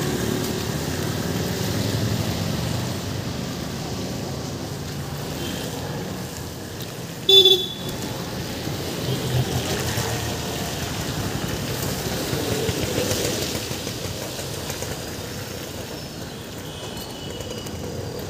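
Steady street noise of passing traffic, with one short vehicle horn toot about seven seconds in, the loudest sound.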